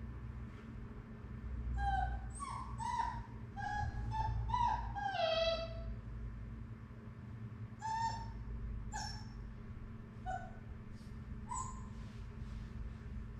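Young puppy whining in short high-pitched cries while held on its back, protesting the restraint. A quick run of cries comes about two seconds in, then single cries spaced a second or more apart.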